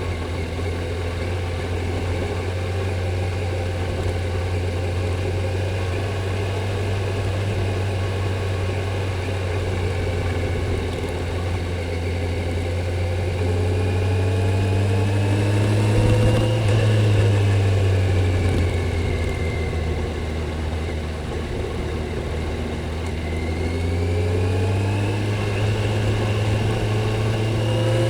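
Kawasaki Z900's 948 cc inline-four engine through its stock exhaust, running under way at a steady note, then rising in pitch about halfway through as the throttle opens, easing back down, and rising again near the end.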